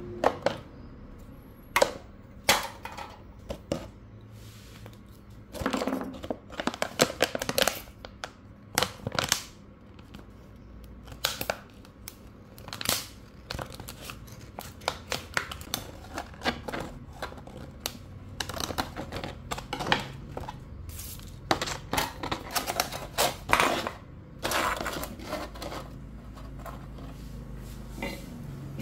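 Thin clear plastic cups being handled and worked: irregular clicks, knocks and short crinkling bursts of plastic, with small taps on the stone slab.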